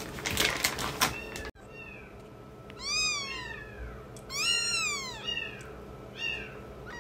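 Newborn kittens mewing: thin, high cries that rise and fall in pitch, two longer ones about three and four and a half seconds in, then shorter ones. In the first second and a half, hands rustling the fleece bedding.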